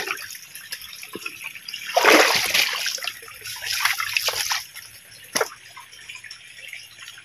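Water splashing and trickling in a shallow rocky creek, with a louder splash about two seconds in and another about four seconds in. A single sharp knock comes about five seconds in.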